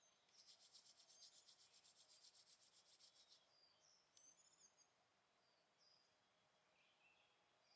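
Near silence with faint outdoor wildlife calls: a rapid, high-pitched pulsing trill for about three seconds, then a few faint short chirps.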